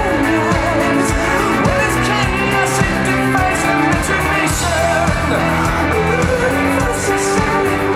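Rock band playing live, loud: electric guitar and drums with a lead vocal singing over them, recorded from among the arena audience.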